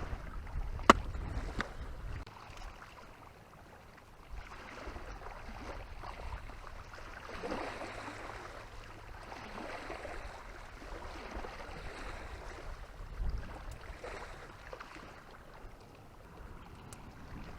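Wind buffeting the microphone and water lapping in repeated soft swells, with one sharp click about a second in.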